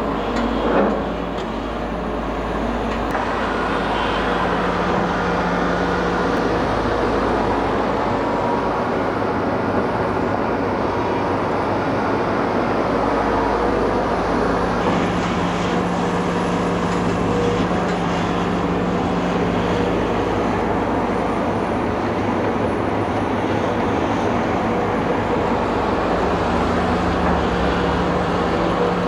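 Diesel engine of a Ford Cargo 2524 dump truck running steadily, its tone shifting a few times, with a short thump about a second in.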